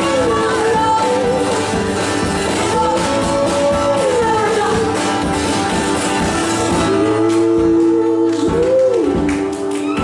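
Live duo performance: two acoustic guitars strummed under a woman's singing, with long held notes that glide between pitches.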